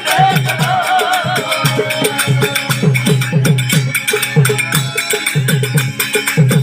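Sindhi kafi folk music: a steady, quick drum beat with a wavering melodic line over it for the first two seconds, then mostly the beat alone.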